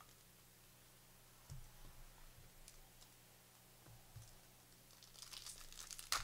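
A trading-card pack wrapper crinkling and tearing open, with a few faint clicks of cards being handled. The crinkling starts about five seconds in.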